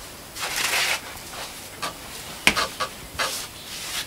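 Scuffing and rustling of clothes and feet as people shift about and sit down, with a single sharp knock about two and a half seconds in.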